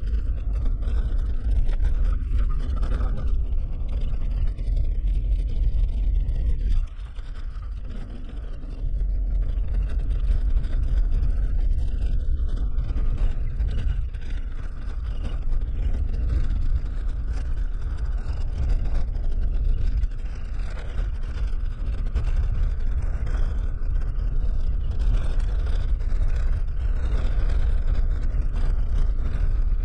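Suzuki Jimny driving on an unpaved dirt track, heard from inside the cab: a steady low rumble of engine and tyres on the rough surface, dropping briefly in level about seven seconds in.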